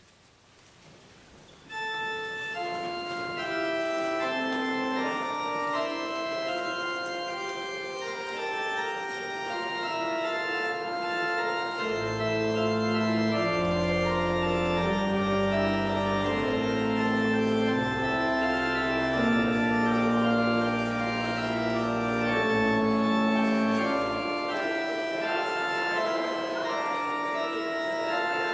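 Organ music after about two seconds of near silence: the organ enters with sustained chords that move from note to note, and deep bass notes join about twelve seconds in.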